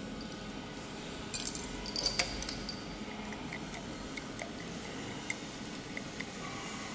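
Glass test tubes clinking against each other and a plastic rack as two are lifted out: a quick run of light clinks about a second in, then a few faint scattered ticks.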